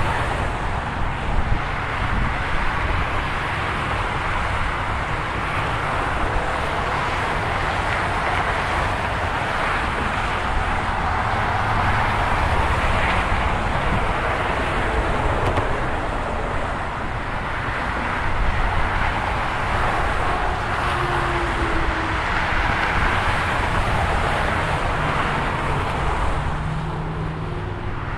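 Steady roar of busy freeway traffic passing close by: tyre noise and engines of cars and trucks, swelling slightly now and then as vehicles go by, with a few brief low engine hums.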